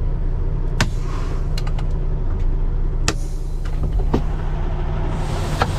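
Semi truck's Cummins ISX15 diesel idling steadily, with several sharp metallic clicks and knocks and a short hiss of air near the end, while the trailer tandems are being slid.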